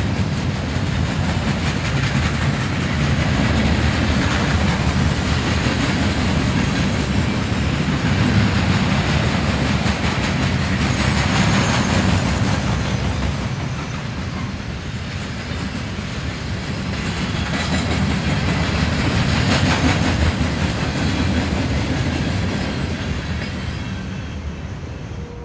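Norfolk Southern freight train's cars rolling past, their wheels clicking steadily over the rail joints over a continuous rumble. The sound eases slightly midway, swells again, then begins to fade near the end.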